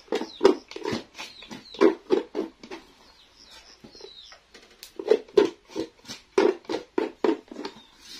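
Chickens clucking in short, irregular clucks several times a second, with a few faint high chirps about four seconds in.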